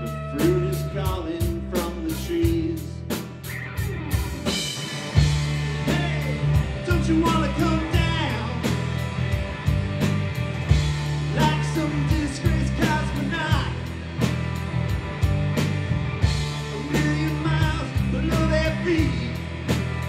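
Live rock band playing an instrumental passage: electric guitars with bending lead lines over bass guitar and a drum kit keeping a steady beat with cymbal hits.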